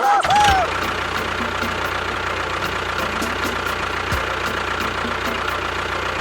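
A small motor running steadily, with a light regular ticking about three times a second over a low hum.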